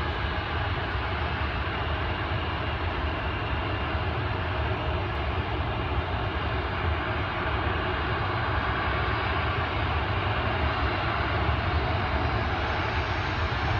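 Jet airliner engines running, a steady rumble with faint steady whines, and a rising whine entering near the end.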